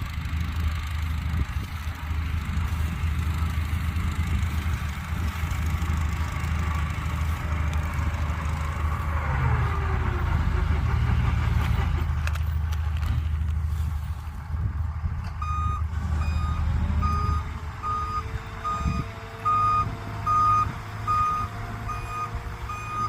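A vehicle engine rumbling low and steady, then about two-thirds of the way in an electronic beeper starts sounding short high beeps, about three every two seconds, as the rumble fades.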